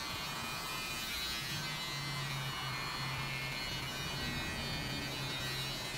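Cordless electric hair clipper buzzing as it trims short hair at the nape, a steady hum that comes through more clearly from about a second and a half in.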